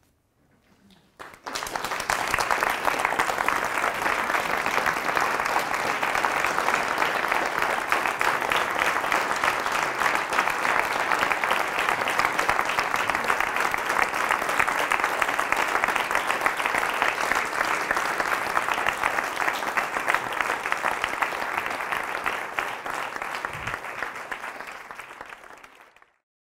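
Audience applauding: the clapping starts sharply about a second in, holds steady, then thins out near the end and cuts off.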